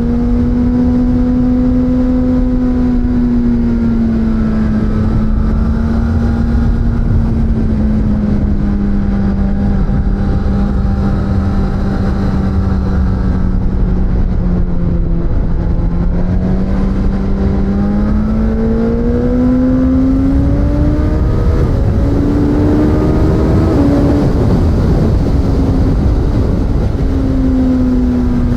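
Suzuki GSX-S1000's inline-four engine running steadily under way, over a heavy rush of riding wind. The engine note sags gently to about halfway, then climbs as the bike accelerates, with a few short steps in pitch about three quarters in before it settles again.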